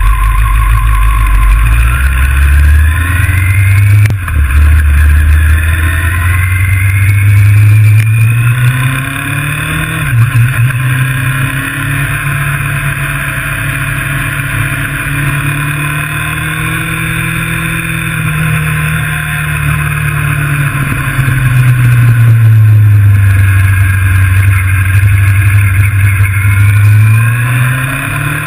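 Sports motorcycle engine heard onboard, accelerating away through the gears: the pitch climbs in steps and drops at each shift over the first several seconds. It holds a steady high pitch at speed, falls as the throttle is closed about twenty seconds in, and rises again near the end as the rider accelerates.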